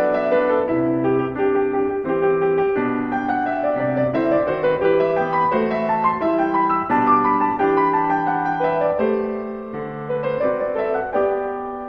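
Instrumental background music: a melody of held notes over lower chords, played on a keyboard instrument.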